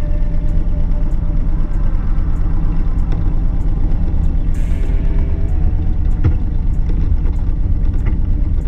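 Motorcycle engine idling with a steady low rumble.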